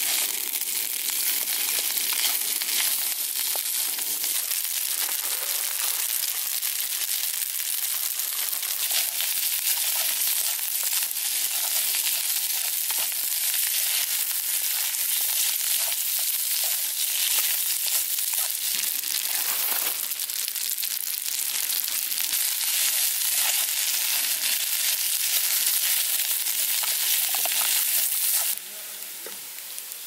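Spaghetti with garlic cloves and chamnamul greens sizzling steadily in a frying pan on a camp gas stove as it is tossed with wooden chopsticks. The sizzle cuts off suddenly near the end.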